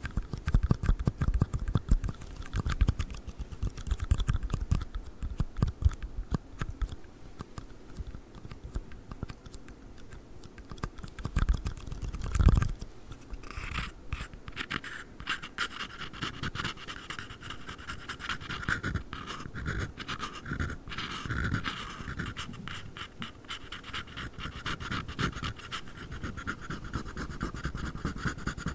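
A black ring box being tapped and scratched at close range, a fast run of small clicks and taps. There is one heavier knock about twelve seconds in, after which the sound turns to a brighter, steadier scratching.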